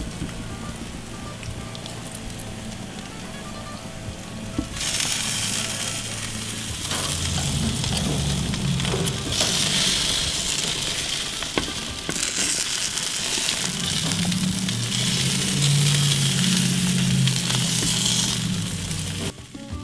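Marinated quail sizzling on a grill as chile sauce is spooned over them and they are turned with tongs. The sizzle gets much louder about five seconds in and stays loud almost to the end.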